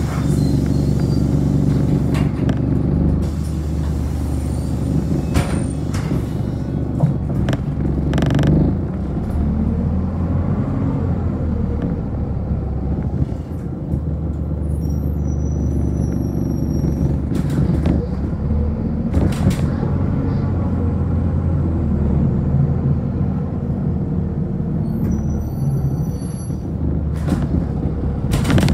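City bus heard from inside the cabin, its engine and drivetrain giving a steady low rumble as it pulls away from a stop and picks up speed. Scattered knocks and rattles from the body and fittings.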